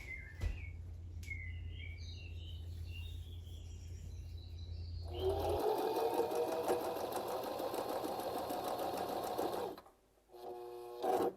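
Electric sewing machine stitching in a fast, even run, starting about halfway in and stopping about a second before the end.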